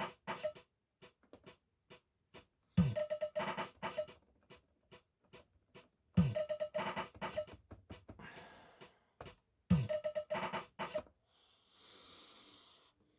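Cheetah SpecDrum digital drum machine on a ZX Spectrum playing a looped pattern of lo-fi sampled drums through speakers. The same bar repeats about every three and a half seconds, each opening with a low falling drum hit, then quick clicky hits such as hi-hat and claps, and a ringing cowbell. It stops about eleven seconds in, leaving a faint hiss.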